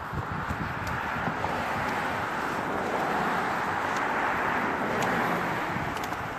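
Road traffic going by, a steady rush of tyres and engines that swells to its loudest about five seconds in and then eases, with wind buffeting the microphone.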